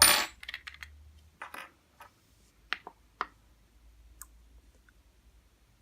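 A spoon and plastic slime-making supplies being handled: a loud clatter at the start, then a few scattered clicks and taps.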